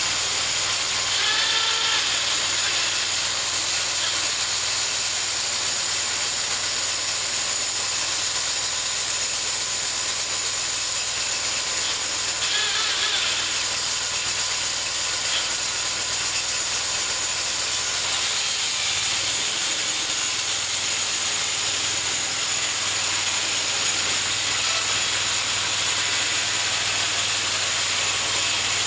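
Homemade bandsaw mill running steadily, its engine driving the blade through a cherry log; the engine note shifts slightly about two-thirds of the way through.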